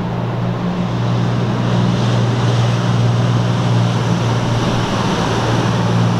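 A boat's motor passing on the water, running with a steady low hum over a wash of water and wind noise.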